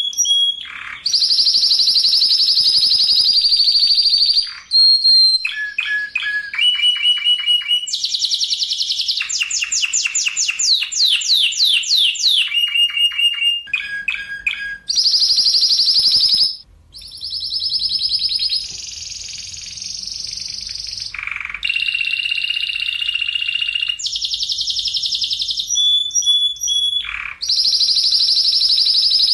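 Spanish Timbrado canary singing a long, continuous song of varied phrases: fast rolling trills, rapid clipped repeated notes, and a run of quick rising sweeps near the middle.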